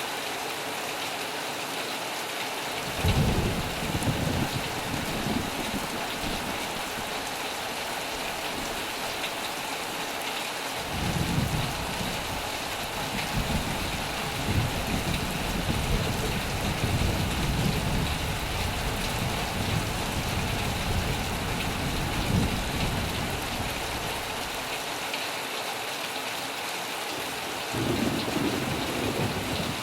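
Heavy rain falling steadily with rolls of thunder: a short rumble about three seconds in, a long rolling rumble from about eleven seconds in, and another starting near the end.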